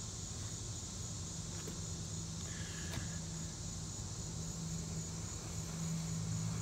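Steady outdoor background: a low, even mechanical hum under a high, steady hiss, with a short faint tone and click about three seconds in.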